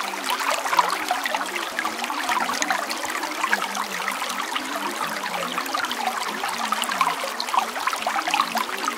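Steady recording of running water, a babbling, trickling stream with many small splashes, used as the masking bed of a subliminal affirmation track. A faint wavering sound sits low beneath the water.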